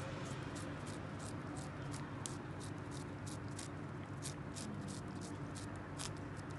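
Calico cat licking CIAO Churu paste from a squeeze tube: small wet lapping clicks, about three a second, over a steady low hum.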